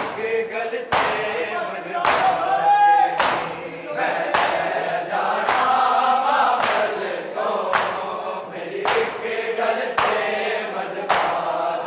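A group of men chanting a noha in unison, with collective hand chest-beating (matam) landing as one sharp slap about every second.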